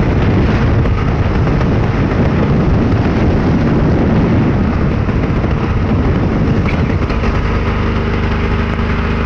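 Wind buffeting the microphone and engine noise of a moving open-sided vehicle. From about seven seconds in, a steady engine hum comes through more clearly under the wind noise.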